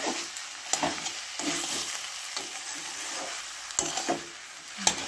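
Metal spatula stirring and scraping chopped beetroot, carrot and potato frying in oil in a metal kadai: a steady sizzle, with a few sharp clinks of the spatula against the pan.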